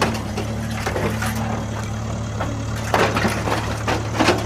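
Truck engine idling steadily with a low, even hum, with scattered knocks and clatter over it.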